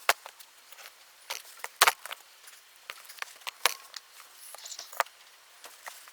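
Metal hand tools and engine parts clinking and knocking as an engine is taken apart: a run of irregular sharp clicks, the loudest a quick double knock about two seconds in.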